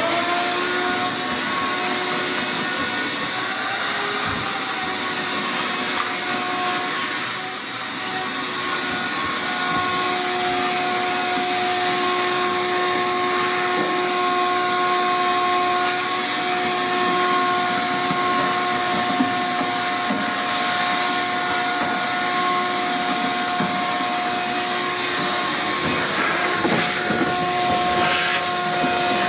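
Shop vacuum spinning up and then running steadily with a high motor whine, sucking lint out of a dryer cabinet.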